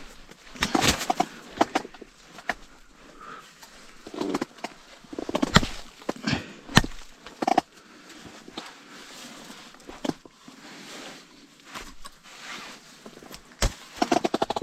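Irregular knocks, clicks and rustling from hands handling an ice-fishing rod, line and a freshly caught burbot. A fast run of clicks comes near the end.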